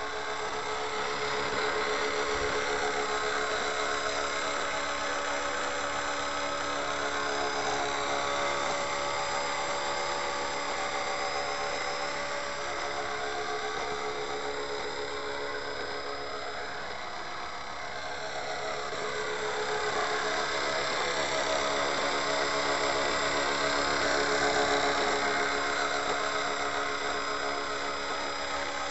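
Radio-controlled JetRanger model helicopter in low hover and slow flight: the steady whine of its motor and drivetrain over the noise of the spinning rotor. The pitch slides gently up and down as it manoeuvres, and the sound grows louder late on as it comes closest.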